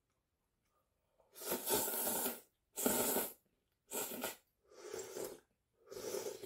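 A person slurping noodles: five short, hissy slurps about a second apart, the first the loudest and the later ones softer. The last is a sip of broth from a spoon.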